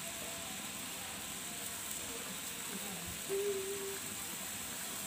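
Sauce simmering in a wok over a portable gas stove's flame, a steady low sizzle and hiss. A short, flat, voice-like tone sounds a little past three seconds in.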